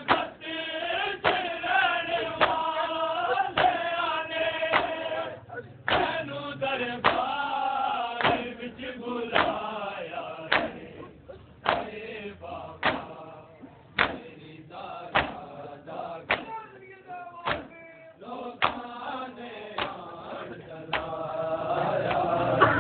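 Crowd of men chanting a noha in unison, with sharp, regular chest-beating slaps (matam) about once a second keeping the beat. The chant thins out for several seconds midway while the slaps go on, then swells again near the end.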